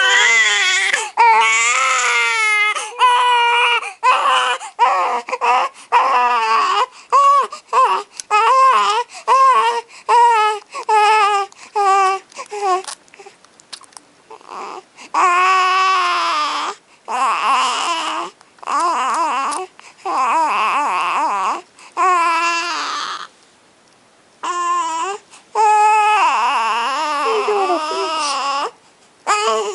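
Baby crying: a run of quick, short wails, then longer drawn-out cries with brief pauses between them.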